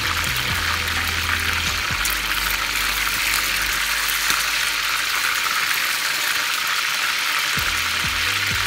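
Chicken pieces frying in hot oil in a pan: a steady, dense sizzle with fine crackling.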